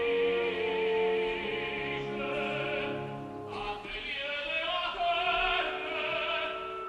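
Live opera: an orchestra plays sustained notes under operatic singing with a wide vibrato, and the harmony shifts to a new chord about halfway through.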